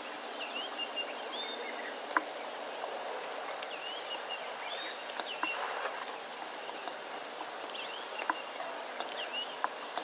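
Steady rain falling, with birds giving short chirps over and over. There are a few sharp drips or ticks, the loudest about two seconds in.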